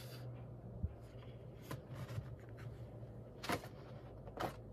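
Loose sheets of coloring-book paper being handled and swapped. Soft paper rustling and sliding, with a few short sharp rustles as the sheets flex, over a low steady hum.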